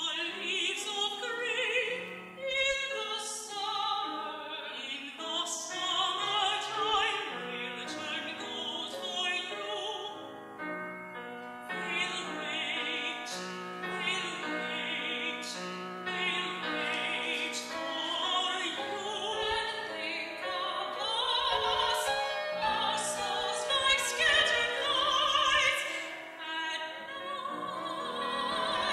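Classical soprano singing with vibrato over piano accompaniment. The sound comes from an old cassette recording, a bit wobbly and uneven, with the highs dulled.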